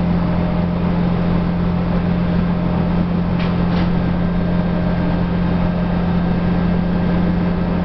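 Steady engine and drivetrain hum with road noise, heard from inside a 2010 Nova Bus LFS articulated city bus while it runs; a couple of faint short squeaks come a little past three seconds in.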